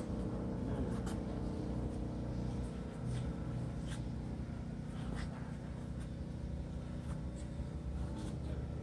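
Steady low hum of a large indoor hall, with a few faint, scattered clicks.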